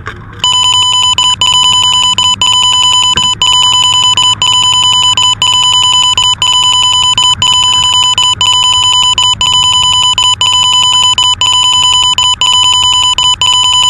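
Loud, continuous high-pitched electronic beep tone that starts abruptly about half a second in, with brief dropouts roughly once a second.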